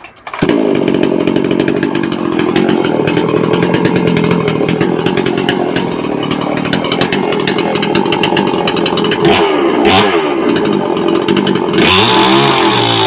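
Brait two-stroke petrol chainsaw starting up abruptly and running steadily. Its pitch dips briefly about ten seconds in, and it revs with a shifting pitch near the end.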